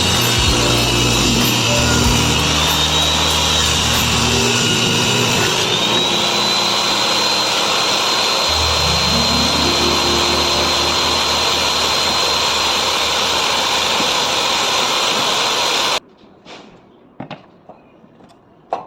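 Electric woodworking power tool running continuously with a steady high whine as it cuts solid wood, stopping abruptly about three seconds before the end; a few light knocks follow in the quiet.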